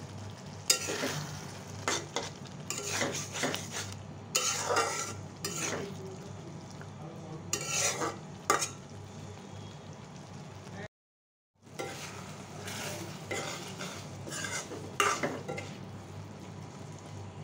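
Metal spoon stirring and scraping instant noodles in a wok of simmering spicy sauce, in irregular bouts of wet scraping with sharp clinks against the pan, over a steady low hum. The sound drops out completely for under a second about eleven seconds in.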